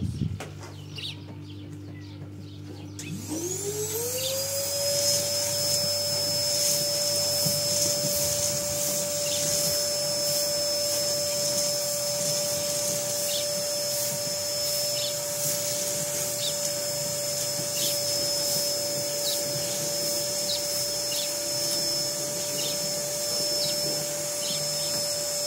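Canister vacuum cleaner switched on about three seconds in, its motor whine rising quickly in pitch and then running steadily.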